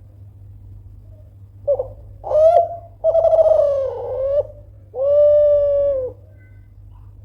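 Kelantan-line spotted dove cooing: a short note, a second short note, a longer note that dips in pitch, then a long steady held coo.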